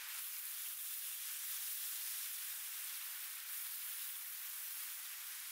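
Thin slices of raw meat sizzling in a hot ridged grill pan: a steady, even hiss.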